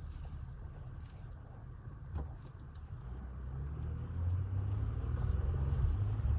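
Low rumble of a car's engine and tyres, heard from inside the cabin while driving, growing louder a little past halfway. One light tick about two seconds in.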